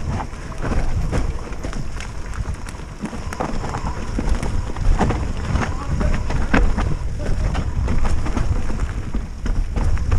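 Mountain bike (a Specialized Stumpjumper) ridden fast down a rooty forest dirt trail: constant low rumble of tyres and wind on the action camera's microphone, with rapid rattling clicks and knocks from the bike over roots and rocks.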